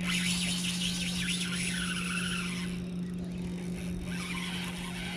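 Spinning reel's drag giving line in spurts as a hooked fish pulls against it: a raspy, high-pitched whirr, longest over the first two and a half seconds and again briefly later, over a steady low hum.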